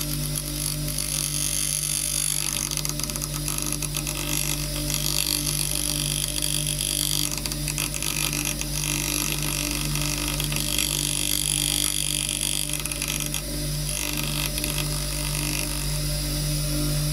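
NuTools half-horsepower bench grinder running with a steady motor hum while the end of a steel chisel is pressed against the stone wheel, grinding with a high hiss in long spells broken by two brief pauses. The chisel's out-of-square end is being ground square.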